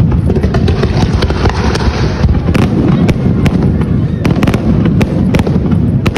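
Fireworks display: a dense barrage of aerial shell bursts, many sharp cracks over a continuous deep rumble.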